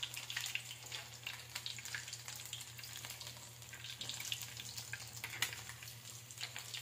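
Chicken necks deep-frying in hot oil in a steel wok, crackling and sizzling steadily, while a metal turner stirs and turns the pieces.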